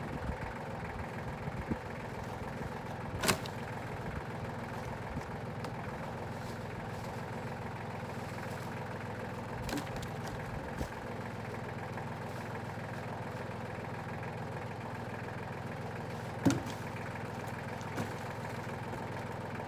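Compact tractor engine idling steadily, with a few sharp knocks of wood being handled, the loudest about 3 and 16 seconds in.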